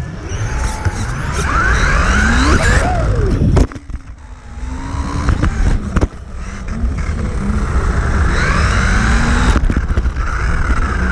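Losi Mini-T 2.0 RC truck's 6,000 kV Dynamite brushless motor whining, rising and falling in pitch with the throttle, over a steady rumble of tyres on carpet, heard from a camera mounted on the truck's body. The whine cuts out sharply twice, about three and a half and nine and a half seconds in, with a few sharp knocks.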